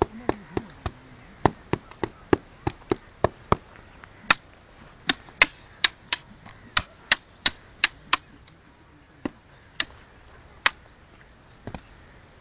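Wooden fighting sticks clacking against each other in gatka stick-fight sparring. The sharp cracks come in quick flurries of two to four a second, then thin out to single strikes near the end.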